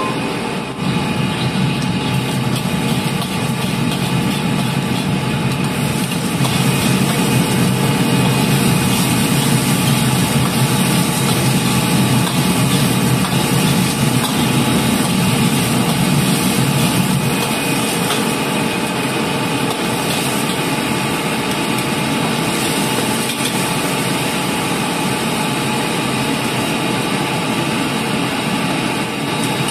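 A gas wok burner running steadily loud under a wok, with garlic, bell pepper, red chili and onion frying in oil and being stirred with a ladle. The sound grows louder about a second in.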